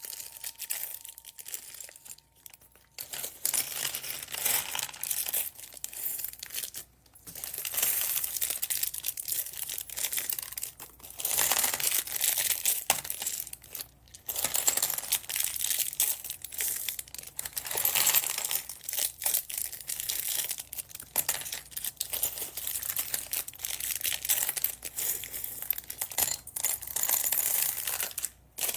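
Plastic bags crinkling and rustling as they are handled, in irregular spells with brief pauses.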